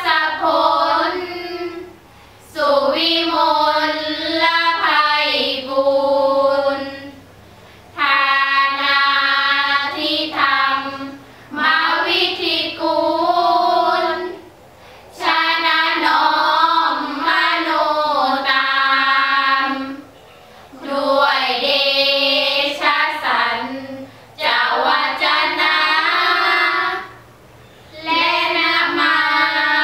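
Five girls chanting Thai Buddhist sarabhanya in unison, a melodic sung chant. It comes in phrases a few seconds long with short breaks between them.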